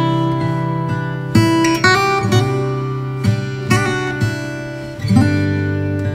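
Background music: acoustic guitar playing a strummed and plucked tune.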